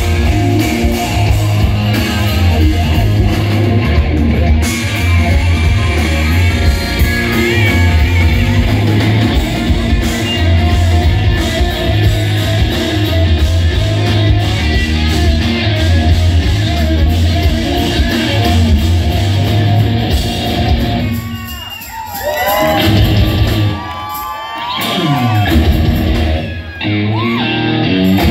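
Live rock band playing loud in a large hall: electric guitars over bass and drums. About three-quarters of the way through, the bass and drums drop out for a few seconds, leaving bending, sliding notes before the full band comes back in.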